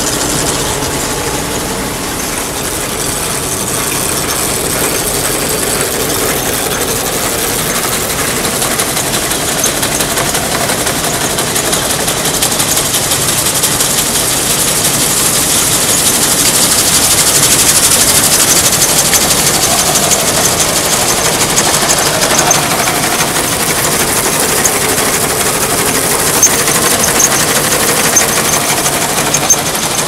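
Claas combine running with its F535 MaxFlex 35-foot flex header: a steady machinery drone that grows louder about halfway through, with a run of sharp clacks near the end.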